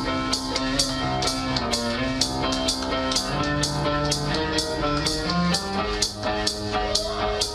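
Live rock band playing an instrumental passage: a drum kit keeps a steady beat of about three strokes a second under held electric guitar chords, with no vocals.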